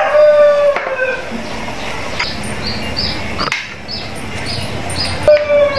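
A rooster crowing: the falling end of one crow in the first second and the start of another near the end. In between, a small bird chirps about twice a second, and there are a few sharp knocks.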